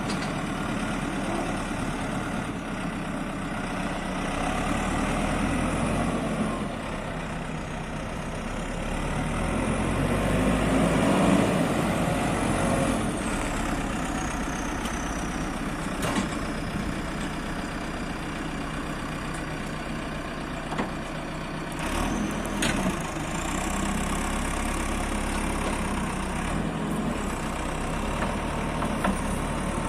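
Diesel engine of a JCB 4CX backhoe loader running steadily, swelling louder twice as it is revved or put under load. A few sharp clicks or knocks come in the second half.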